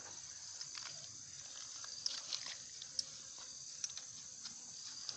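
Quiet outdoor background: a steady high-pitched hiss with a few scattered small clicks and taps.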